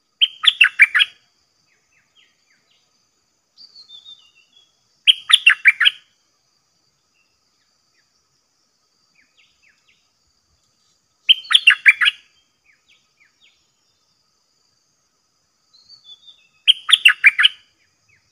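A caged decoy bulbul singing four short, loud, bubbling song phrases a few seconds apart, each under a second long, with fainter short calls just before the second and the last. It is a call-bird song meant to draw a wild bird of its kind in to fight.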